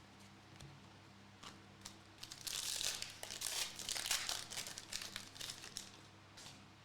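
A trading-card pack wrapper being torn open and crinkled: a dense crackle lasting about three and a half seconds from a little after two seconds in, with a few light clicks before and after.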